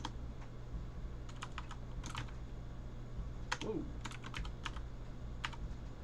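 Computer keyboard keystrokes: sharp clicks in short irregular clusters of two to five presses, with pauses between them, over a steady low electrical hum.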